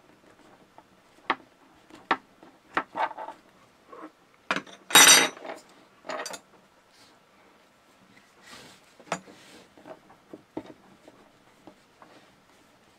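Small clicks and taps of hands handling rope and a metal splicing fid on a wooden table. About five seconds in comes a loud metallic clatter as the fid is laid down on the wood, the loudest sound here. Softer rustling of the braided Dyneema line follows later.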